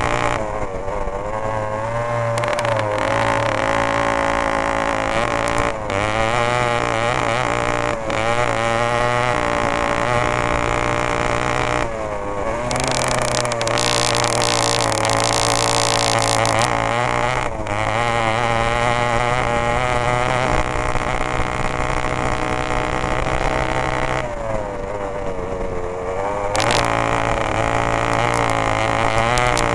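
Yamaha RX 180 two-stroke single-cylinder engine of a cross kart buggy at racing pace. It revs up and falls away again and again as the driver works the throttle through gears and corners. In the middle there is a few-second stretch of loud hiss.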